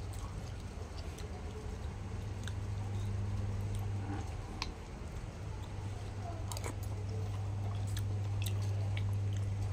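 A man chewing a mouthful of chicken noodles, with a few short sharp clicks scattered through, over a steady low hum.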